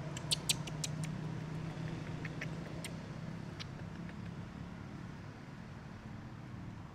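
A steady low engine hum that slowly fades, with a quick run of sharp clicks in the first second and a few more clicks a little later.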